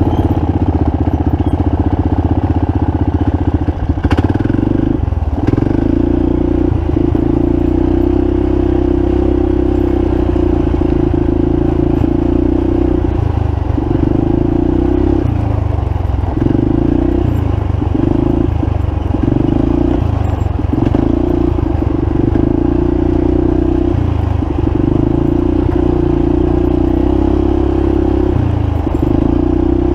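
Quad (ATV) engine running hard under throttle. Its steady note drops away briefly every few seconds as the throttle is let off and rolled back on.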